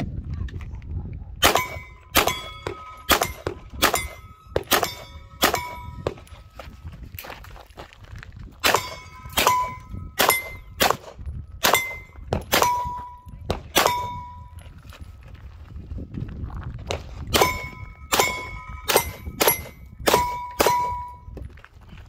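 Three quick strings of gunshots at steel plate targets, each shot followed by the short clang and ring of the steel being hit. About ten shots come first, then after a pause about ten more, then after another pause about eight.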